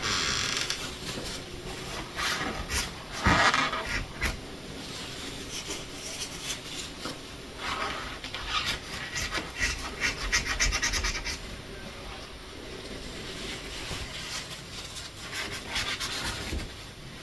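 Paper towels rubbing, scraping and crinkling against a door hinge as excess silicone lubricant is wiped off it, with a run of quick crackles in the middle and one short sweep about three seconds in.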